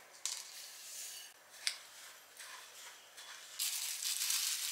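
Rolled oats being poured into a mixing bowl: a dry, grainy rustle that grows much louder about three and a half seconds in. A couple of sharp clicks come before it.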